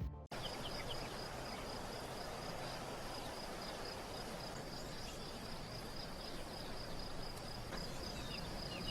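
An insect chirping in a rapid, even series, about five pulses a second, that fades near the end, over a steady hiss.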